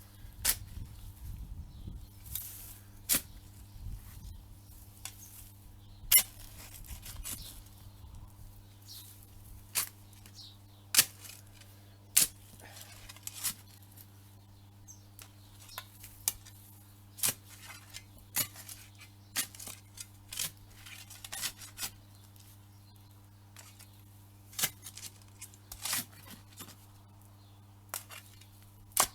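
A spade digging down into garden soil: a string of sharp chops and scrapes at irregular intervals, roughly one a second, with some low rumbling handling in the first several seconds.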